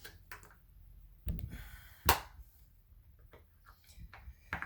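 A few sharp clicks and knocks of a paintball marker's parts being handled and fitted together during reassembly, the loudest about two seconds in.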